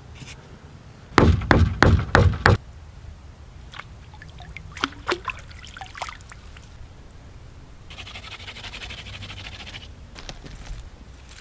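About five heavy knocks in quick succession, then scattered splashes and drips as a wooden harpoon is jabbed into shallow creek water, and a fine crackly rustle near the end.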